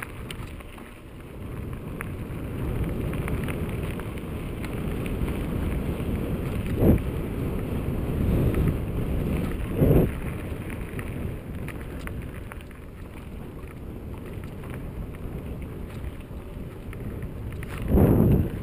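Wind noise buffeting the microphone of a camera riding a mountain bike fast downhill, over the steady rumble of the tyres rolling on dirt and gravel. There are three louder buffets: about a third of the way in, about halfway, and near the end.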